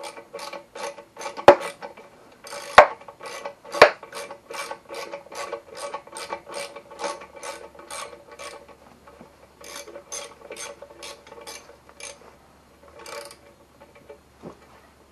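Socket ratchet wrench clicking about three times a second as it backs out an exhaust screw, with a few louder sharp knocks in the first four seconds and a couple of short breaks. The clicking stops shortly before the end.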